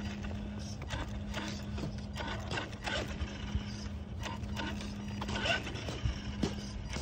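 Electric RC monster truck running along concrete at a steady low speed: a steady motor-and-gear whir with a break about a second in and another about five seconds in, over tyre rumble, with irregular clicks and taps throughout.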